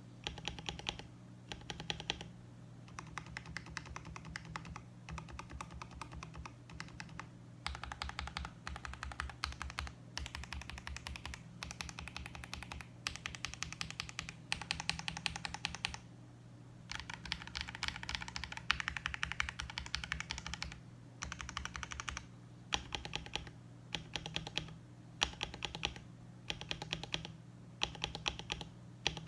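Typing on a KBD67 Lite R3 mechanical keyboard with lubed KTT Panda linear switches and PBT keycaps: fast runs of keystrokes broken by short pauses.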